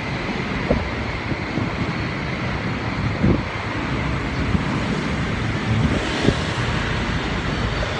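Wind buffeting a handheld phone's microphone, a steady rumbling hiss, with a few soft handling bumps.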